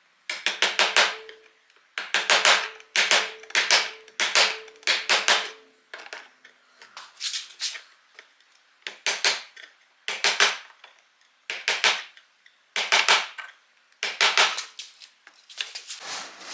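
A mallet is driving a chisel into a glued wooden joint in short groups of quick strikes, about one group a second. There is a brief ringing note during the first several seconds. The chisel is being worked around the edges to loosen a glued-on wedge.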